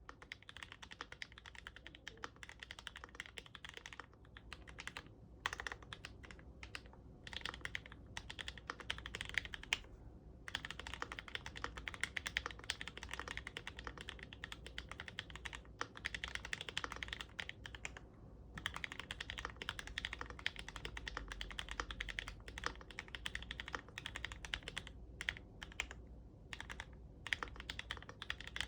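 Typing on a GMMK Pro mechanical keyboard with fully lubed and filmed 43 Studio Popu switches (65 g) and ABS keycaps: a dense, continuous run of key strokes, with brief pauses about a third of the way in and again about two thirds in.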